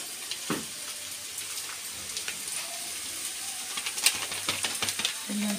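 Onions frying in hot oil: a steady sizzle with scattered crackles and pops.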